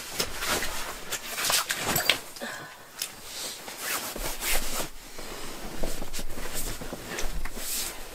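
Nylon shell of a Lost Horizon sleeping mat rustling and swishing in irregular scuffs as it is folded and rolled up tightly on a cot.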